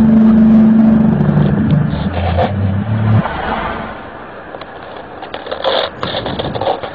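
A deep, horn-like sound of several low sustained tones that shift in steps and cut off abruptly about three seconds in, over steady outdoor background noise. It is one of the unexplained 'strange sounds' recordings.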